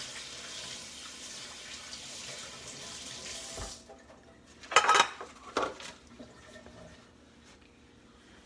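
Kitchen faucet running as hands are rinsed under it, shut off a little under four seconds in. About a second later come a couple of sharp clatters, the loudest sounds here, then quiet.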